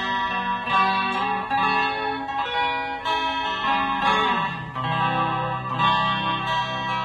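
Electric guitar played through a Fender Mustang I modelling amp: picked notes and chords, then about four seconds in the pitch slides down onto a held low note.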